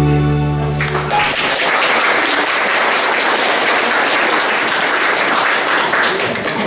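The final held chord of a song on keyboard and band instruments cuts off about a second in, then an audience applauds steadily.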